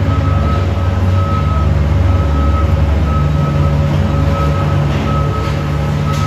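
New York City subway train rumbling heavily in the station, with a steady low hum. A high electronic beep repeats about twice a second over it.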